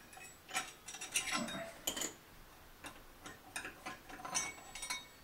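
Irregular light metallic clicks and taps, some with a short high ring, as the nut and 40-tooth blade are worked off the arbor of a Harbor Freight 4-inch Mighty-Mite table saw.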